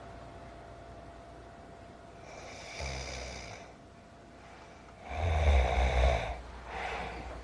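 A person snoring: slow, rough breaths, with the loudest about five seconds in.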